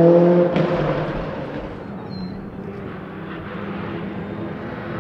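Rally car engine fading quickly as the car drives away on gravel, then the fainter, steady engine note of another rally car in the distance.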